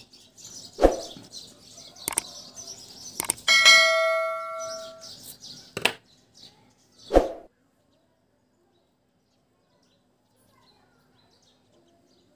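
Birds chirping in the background for the first few seconds, with a few short knocks and a single bell-like chime about three and a half seconds in that fades over a second and a half. After about seven and a half seconds the sound drops to near silence.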